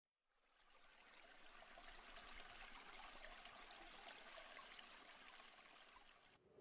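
Faint running water, a trickling stream with fine bubbling specks, fading in at the start and cutting off abruptly just before the end.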